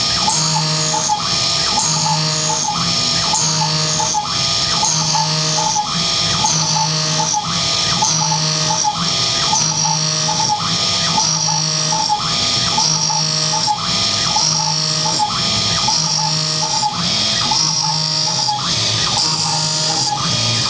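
CNC milling machine cutting a pocket with a 12 mm carbide end mill spinning at 3000 RPM on an adaptive clearing (trochoidal) toolpath. Steady spindle and cutting noise, with the axis-motor whine stepping up and down in a repeating cycle about once a second as the tool loops in and out of the cut.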